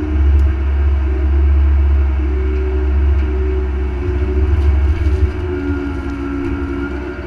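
Mini excavator's diesel engine running at high revs under load, a steady low rumble with hydraulic whining tones that come and go as the boom and bucket work in the mud.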